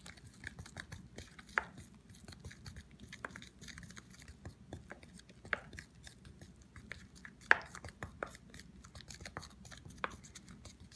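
Wooden spoon stirring thick, curdy casein glue in a plastic tub: soft scraping with scattered clicks of the spoon against the tub, and a few sharper knocks.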